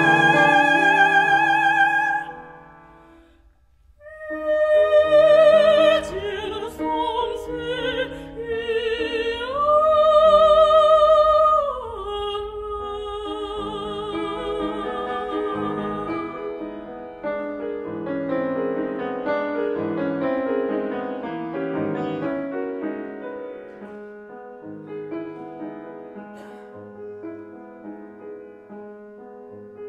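A classical singer with piano accompaniment, singing in an operatic style with vibrato. The voice holds a note, breaks off briefly about three seconds in, then sings a phrase that rises to a long held note. From about twelve seconds the piano plays on alone, gradually growing softer.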